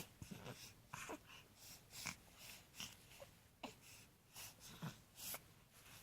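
Baby's faint snuffly breathing with small snorts and grunts, a short breathy noise every half second or so.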